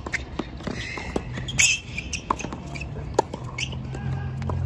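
Tennis rally: a ball struck by rackets roughly once a second, with shoes squeaking on the court between shots. Low background music comes in near the end.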